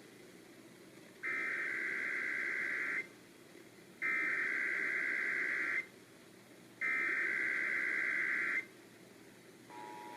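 Emergency Alert System header for a Required Monthly Test, heard over a radio broadcast: three identical bursts of digital SAME data tones, each just under two seconds long with about a second between them. Near the end the steady two-tone EAS attention signal begins.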